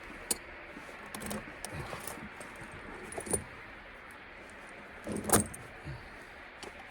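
Steel tire chain links and wire clinking in scattered, irregular clinks while the slack inner links of a backhoe's tire chains are being wired up; the loudest clink comes about five seconds in.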